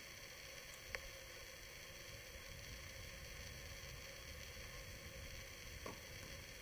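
Steady faint hiss with two sharp knocks of a tennis ball in play, one about a second in and a duller one near the end.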